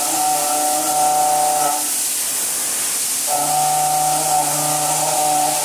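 Trimill VU 3019 5-axis high-speed gantry machining centre milling a metal block: a steady whine from the spindle and cutter over a constant hiss. Midway the whine drops out for about a second and a half, leaving only the hiss, then comes back.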